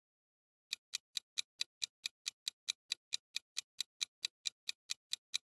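Clock-ticking sound effect for a quiz countdown timer: rapid, even ticks, about four or five a second, starting just under a second in.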